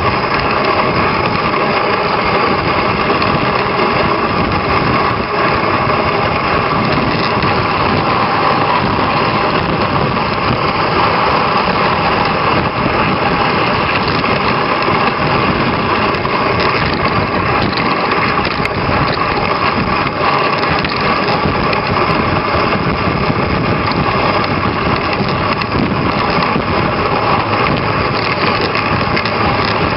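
Loud, steady rushing noise of a dog sled running over a packed snow trail behind a team of Alaskan Malamutes.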